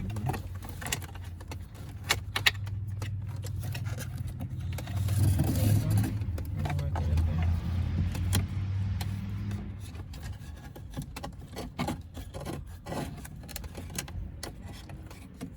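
A cable harness being worked up behind plastic dashboard trim: scattered light clicks, knocks and rattles of plastic and connectors, over a low steady hum that swells for several seconds in the middle.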